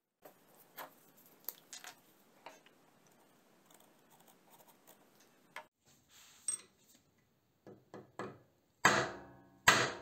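Faint clicks of metal parts being handled, then a few light taps and two hard blows of a hammer on metal on a cast-iron machine table near the end, each blow ringing out.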